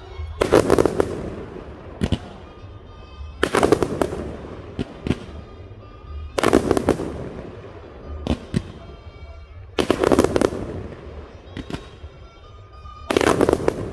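Aerial fireworks bursting: five clusters of booms and crackle about every three seconds, with single sharp bangs between them.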